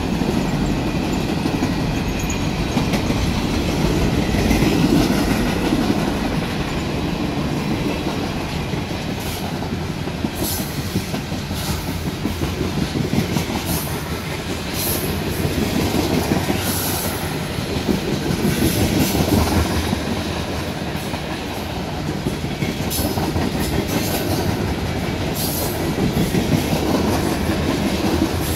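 Freight cars of a Norfolk Southern train (boxcars, tank cars and covered hoppers) rolling steadily past: a continuous rumble with the wheels clacking over the rail joints and brief high wheel squeals now and then.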